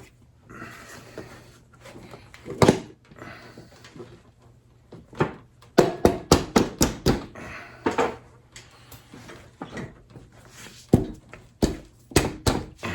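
Knocks and clicks of parts being worked into place while a motorcycle's front wheel, axle and spacers are fitted between the fork legs. They come scattered, with a loud knock about two and a half seconds in and a quick run of about eight knocks around six to seven seconds in.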